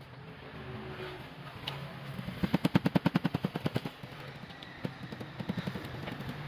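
A rapid series of knocks, about eight a second, lasting about a second and a half, then a shorter run of a few knocks.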